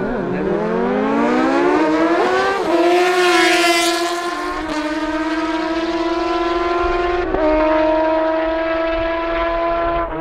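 Two sport motorcycles launching off a drag-strip start line and accelerating hard, their engines climbing steeply in pitch. The engines then hold a high, near-steady note, with brief dips at gear changes about four and a half and seven seconds in.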